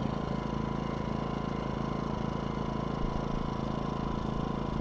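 DuroMax XP2000is inverter generator running steadily at idle with no load, heard from its exhaust side.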